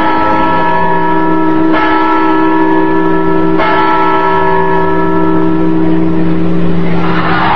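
Clock-tower bell striking slowly, a fresh stroke about every two seconds over a long, steady ringing hum. Near the end a crowd's shout swells up over it.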